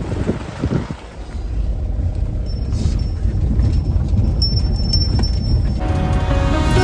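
Low rumble of a vehicle on the move, growing steadily louder; background music fades in near the end.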